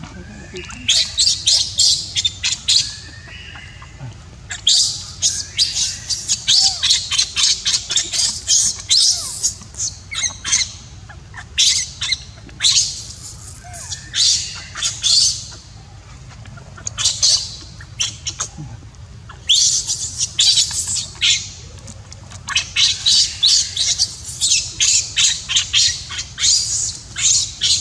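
Baby macaque screaming in rapid trains of short, shrill squeals, bout after bout with short pauses between: a distress cry.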